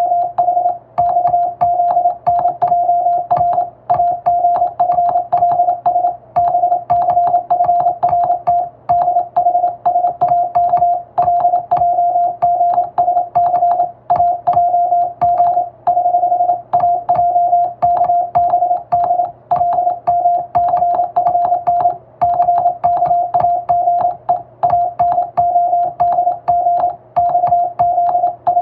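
Hand-sent English Morse code from a telegraph key: a single steady beep tone switched rapidly on and off in dots and dashes, with a click at each keying and a short pause every couple of seconds.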